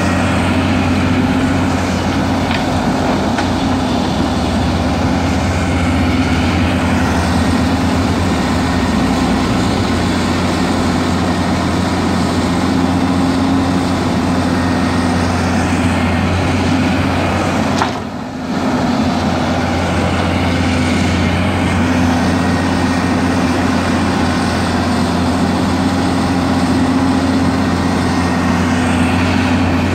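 Diesel engine of a Hyundai Robex crawler excavator running steadily with a low hum as the machine digs, dropping briefly about two-thirds of the way through.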